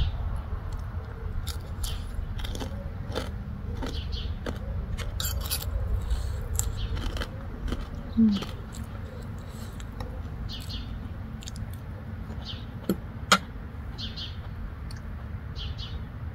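Close-up chewing and crunching of crispy pork cracklings and papaya salad, with many short crisp cracks and clinks of a fork on the plate, one sharp clack about 13 seconds in. A steady low rumble runs underneath.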